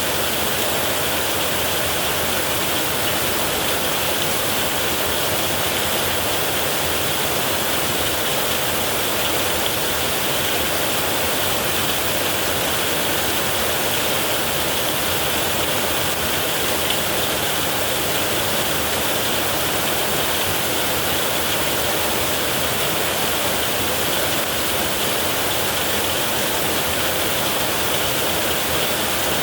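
Heavy rain falling steadily on a metal roof: an even, unbroken hiss.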